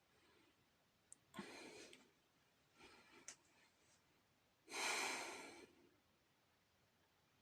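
A person gasping for breath during an asthma attack: three noisy breaths, the last the longest and loudest, about five seconds in.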